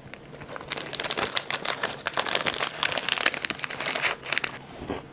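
Clear plastic cookie wrapper crinkling in the hands, a dense run of small crackles that dies away about four and a half seconds in.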